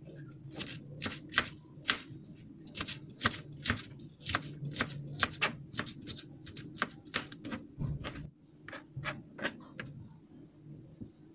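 Serrated kitchen knife chopping a green bell pepper on a plastic cutting board: quick, irregular knocks of the blade striking the board, about three a second, stopping shortly before the end.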